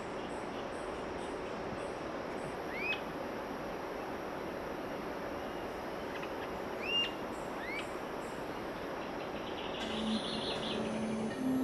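A wild bird calling a few short, sharp chirps, each rising and then dropping in pitch, over a steady outdoor hiss. Music begins near the end.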